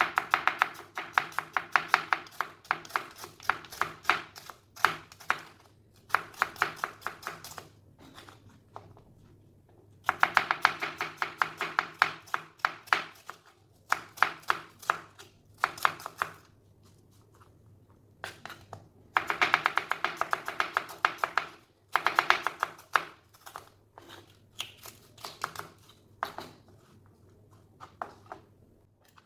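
Knife chopping food on a cutting board in quick runs of several strokes a second, with short pauses between runs.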